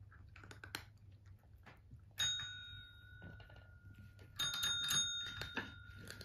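Tabletop service call bells being pressed by cats: soft taps and clicks, then a single ding about two seconds in that rings on and fades, then a quick run of several dings from about four and a half seconds in, still ringing when the sound cuts off.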